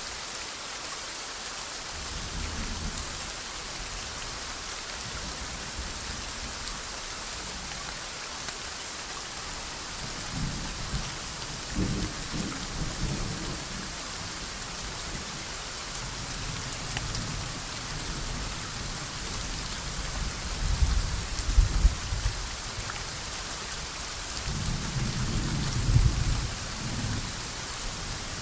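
Soft, steady rainfall hissing, with several low rolls of thunder rumbling up and fading away, the loudest about three-quarters of the way through.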